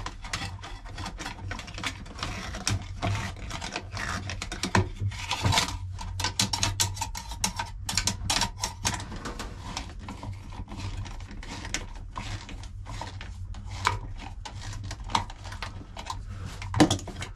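Nut driver turning the worm screw of a hose clamp to tighten it: rapid clicking and scraping in irregular runs, with handling knocks between.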